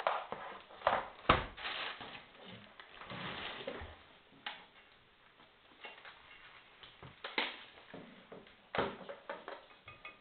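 Scattered clicks and knocks with some rustling as a laptop and its power adapter are handled; the loudest knock comes about a second in.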